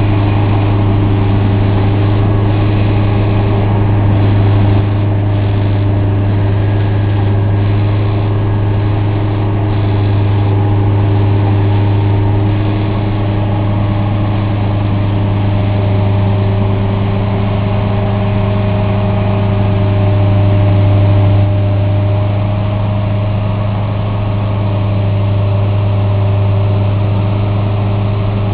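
Engines of a slow-moving track-renewal train running with a steady, loud low drone, with a few faint knocks and clanks in the first ten seconds.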